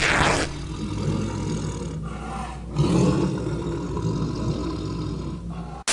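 Tiger roaring and growling, a dubbed-in sound effect: a loud roar at the start, a low rumbling growl, a second swell about three seconds in, then an abrupt cut-off near the end.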